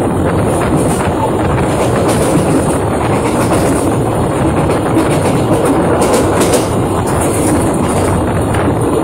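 Blora Jaya passenger train running at speed: a loud, steady rumble of wheels on the rails, heard from an open carriage window.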